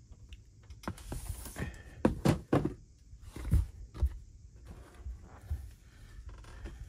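Cardboard sneaker box lid being lifted off and handled: a few soft knocks and thuds, most of them between about two and four seconds in.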